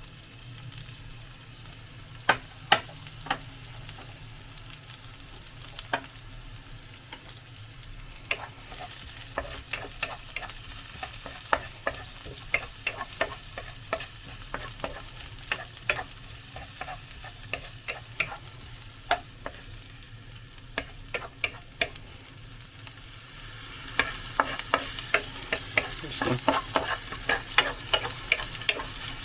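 Garlic and onion sautéing in hot oil, with a cooking utensil clicking and scraping against the pan as it is stirred. The sizzle grows louder about eight seconds in and again near the end, when the clicks come thicker.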